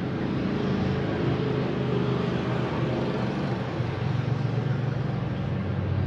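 A steady low hum under a constant broad hiss, machine-like background noise with no clear bird calls.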